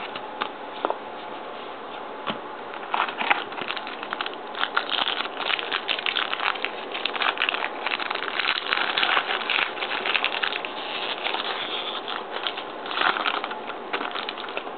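Trading cards and pack wrappers rustling and crinkling as they are handled: a dense run of soft clicks and crackles starting about three seconds in.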